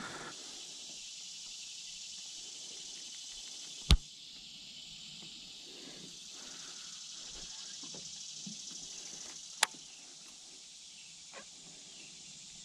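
Steady high-pitched insect chorus from the pond's surroundings, broken by two sharp knocks, the louder about four seconds in and another near ten seconds.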